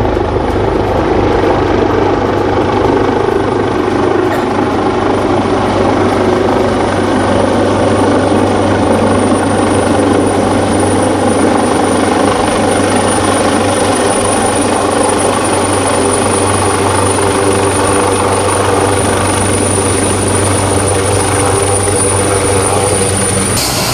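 AgustaWestland AW139 twin-turbine helicopter descending to land: loud, steady rotor and engine noise, with a high turbine whine that grows stronger about nine seconds in.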